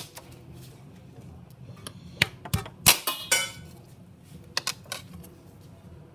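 Kitchen knife blade striking ice and the tiled countertop: a quick run of sharp clicks and knocks about two seconds in, with a brief scrape of the blade on the tile, then a few lighter clicks about a second later.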